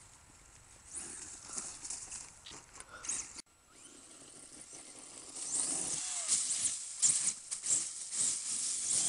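Radio-controlled off-road car driving over dirt and gravel, its tyres scrabbling and spraying grit with a hiss. It is faint at first, with a sudden break about three seconds in, and gets louder from about five seconds in.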